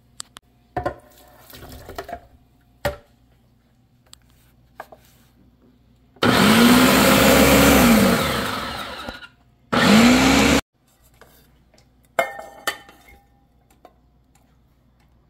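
Ninja countertop blender puréeing yams: the motor spins up, runs for about three seconds and winds down, then gives one short pulse of about a second that cuts off suddenly. Scattered clicks and clatter of kitchenware before and after.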